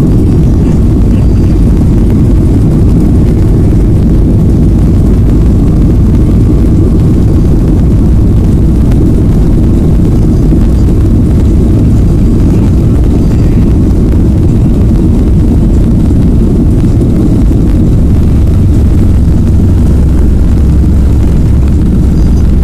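Boeing 737 jet engines at takeoff power, heard from inside the cabin during the takeoff roll: a loud, steady low rumble. The deepest part of the rumble grows a little stronger in the last few seconds.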